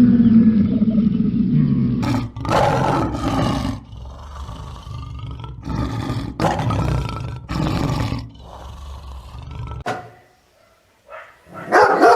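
A large farm animal calling loudly again and again, each call about a second long with short gaps between. There is a brief lull near the end.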